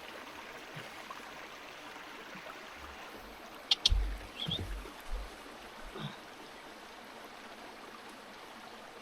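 Steady rushing of river water. A sharp snap comes a little under four seconds in, followed by a few dull thumps and a softer knock about six seconds in.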